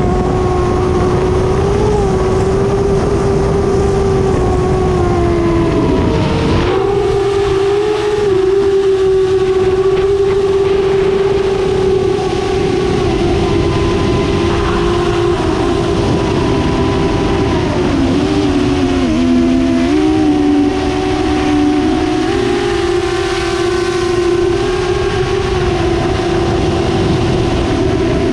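Electric motors and 7-inch three-blade props of a Source One 7-inch FPV quadcopter (EMAX ECO II 2807 1500Kv motors) humming at a steady pitch in flight, over a rush of air. The pitch dips briefly about six seconds in, and again lower for a couple of seconds near the end as the throttle eases, then climbs back.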